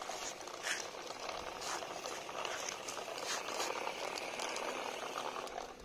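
Homemade remote-control toy tractor driving over rough concrete: its small electric motor runs with a steady rattling whirr, and its plastic wheels and trailer clatter, giving irregular clicks.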